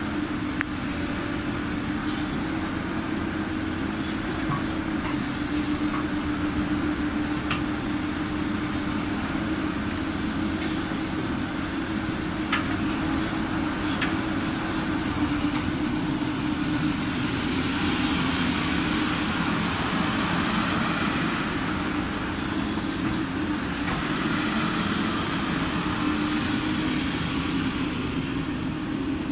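Caterpillar 308E CR mini excavator's diesel engine running steadily at raised speed, a constant machine hum with a steady tone, with a few light clicks over it.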